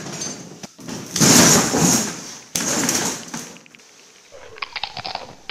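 Loud scuffling commotion with thuds as a person falls and thrashes on a concrete floor, in two long rough bursts, followed by a few light clicks near the end.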